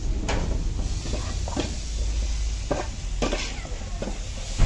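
Metal ladle scraping and knocking against an aluminium cooking pot while a thick onion-tomato masala is stirred, several separate clinks a second or so apart over a steady low hum.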